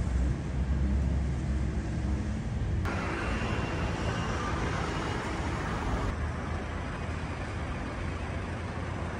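City road traffic: a low engine rumble of passing vehicles, then, about three seconds in, an abrupt change to a brighter, steadier hiss of street noise.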